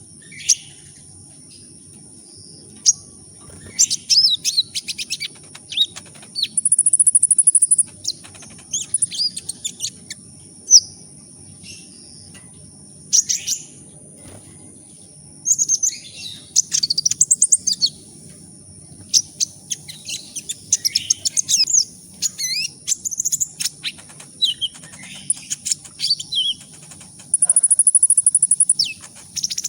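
Sunbird of the kind Indonesian keepers call 'kolibri ninja' singing: quick, high chirps and twittering phrases in irregular bursts, with a fast buzzy trill about seven seconds in and again near the end. A thin steady high tone and a faint low hum run underneath.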